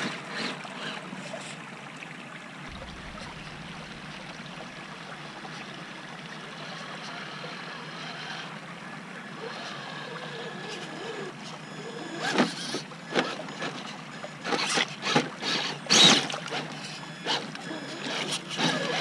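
Traxxas TRX-4 RC crawler driving through a shallow creek, its electric motor and gears whirring over a steady trickle of stream water. In the second half, as it reaches the camera, its tires churn and splash loudly through the water in a run of sharp bursts.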